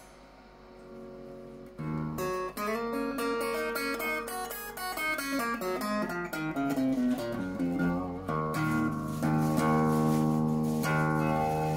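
Electric guitar played through a small Peavey combo amplifier with a clean tone: single notes begin about two seconds in and step down in pitch, then a chord is left ringing.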